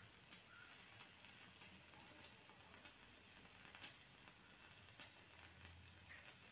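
Near silence: faint steady hiss of room tone, with a couple of faint soft taps.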